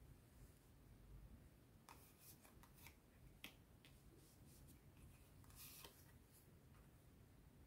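Faint handling of round tarot cards: soft clicks and brushes as cards are picked up and laid down on a cloth-covered table, a cluster of clicks about two seconds in and a short rustle near the end, otherwise near silence.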